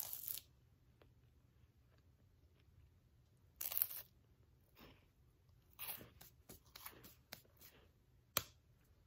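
Quiet eating sounds: a person biting and chewing a piece of candy, with a few short noisy bursts and a sharp click near the end.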